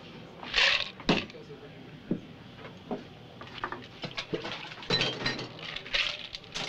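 Ice rattling in a metal cocktail shaker as a drink is poured out, followed by scattered clinks and light knocks of barware set down on the bar counter.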